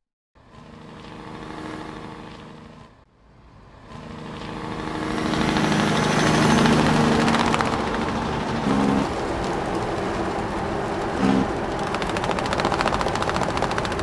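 An engine running with a steady hum. It cuts out briefly about three seconds in, then comes back and grows louder into a fast, rattling pulse.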